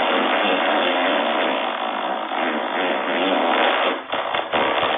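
The "motorbike" fart sound effect from the Amazing Fart Sounds app: a long, rough fart noise mimicking a motorbike engine. It dips briefly about four seconds in and turns choppier after that.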